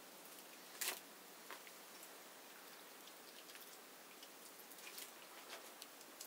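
Faint wet squelching of grapes being crushed by bare hands in a plastic basin, a few soft squishes, the clearest about a second in.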